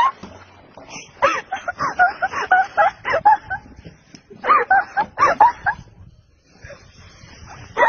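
Onlookers laughing and squealing in short high-pitched bursts, in two runs, then a lull near the end.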